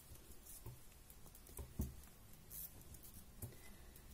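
Faint, irregular soft taps and rustles of knitting needles working yarn.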